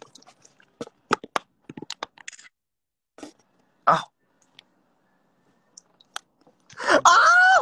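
Scattered small clicks and short mouth sounds, a brief vocal sound about four seconds in, then near the end a very loud drawn-out wailing cry from a man's voice that rises in pitch.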